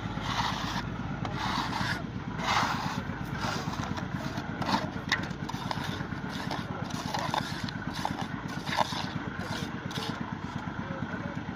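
Steel hand trowel scraping and scooping gravelly concrete mix, a short rasping scrape every second or so. A small engine idles steadily underneath.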